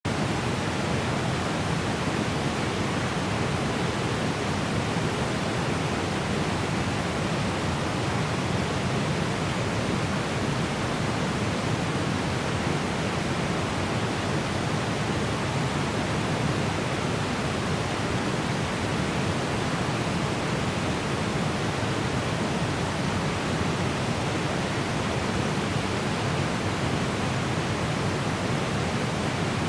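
Small but strong waterfall heard from a medium distance: a steady, even rush of falling water with no breaks or changes.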